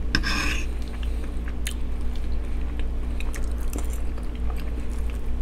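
Close-miked chewing and mouth sounds of someone eating loaded baked potato and sausage, with scattered small clicks of a fork against the food, over the steady hum of an electric fan.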